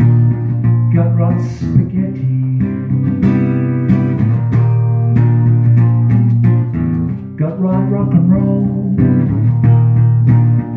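Acoustic guitar strummed steadily, played live.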